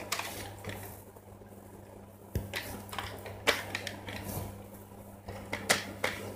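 Scattered light clicks and crinkles of a plastic ham packet and ham slices being handled on a cutting board, over a steady low hum.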